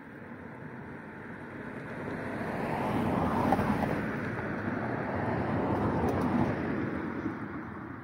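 A car passing by on a road: its tyre and engine noise swells over a couple of seconds, stays loud through the middle, then fades away.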